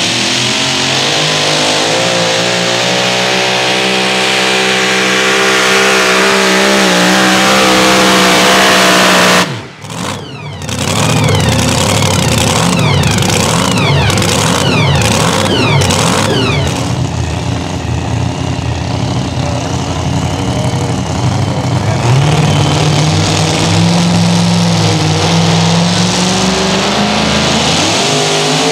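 Supercharged engine of a super modified two-wheel-drive pulling truck at full throttle, its pitch climbing steadily as it pulls the sled. About nine seconds in it cuts out abruptly, then runs hard again and settles to a steadier, lower note that rises again near the end.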